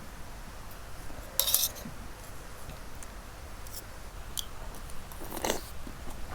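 Eating utensils clinking and scraping against a bowl: a few short, scattered sounds, the loudest about one and a half seconds in and another near the end.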